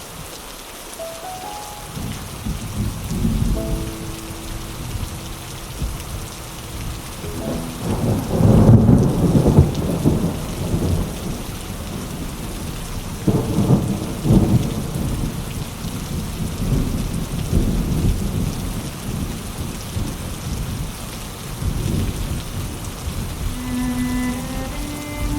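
Steady rain with thunder rumbling in long rolls, loudest about eight to ten seconds in and again around fourteen seconds, over faint soft background music.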